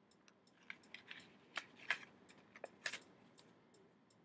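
Crinkling of a press-on nail kit's plastic and paper packaging as it is handled and opened, with a few sharp crackles in the middle.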